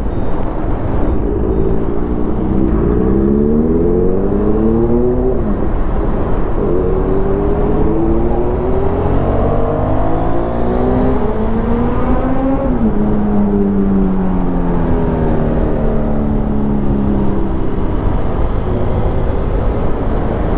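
KTM Duke 390's single-cylinder engine under a rider accelerating, with wind noise on the microphone. The revs climb, drop briefly at a gear change about five seconds in, and climb again. A little past halfway they fall away steadily as the bike slows.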